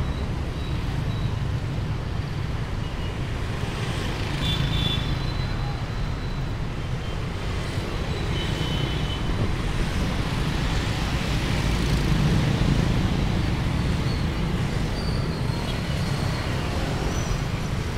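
Dense city street traffic, mostly motor scooters and small motorbikes with a few cars, a steady mix of small engines and tyres, with a couple of short high tones about four and a half and eight and a half seconds in.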